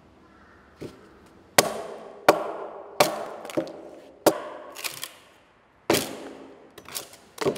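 A hand tool striking and cutting into a wooden boat plank: about a dozen sharp blows at an irregular pace, roughly one every half second to second, each with a short ringing decay.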